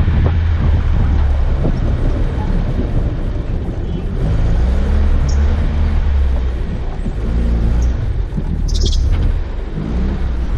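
A 4x4's engine running under load as the vehicle drives over a rough dirt and snow track: a deep, steady rumble whose engine note shifts in the middle. Occasional knocks come from the vehicle over the uneven ground, and there is a brief high-pitched squeak about nine seconds in.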